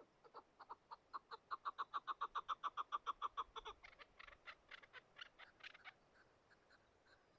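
Chukar partridge calling: a run of clucking notes that quickens to about seven a second, then turns into louder, higher, rasping chuk-ar notes before trailing off near the end.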